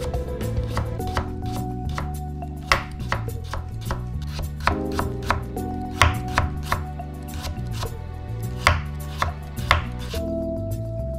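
Kitchen knife chopping carrot on a cutting board: crisp, irregular strikes, a few each second, as the carrot is cut into thin slices and strips.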